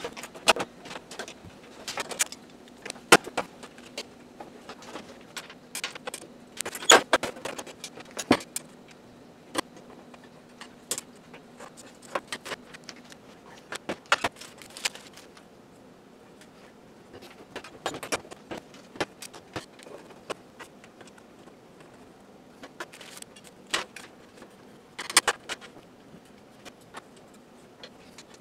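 Small metal screws and stove hardware clinking and rattling as they are handled: irregular sharp clicks, with a few denser clusters.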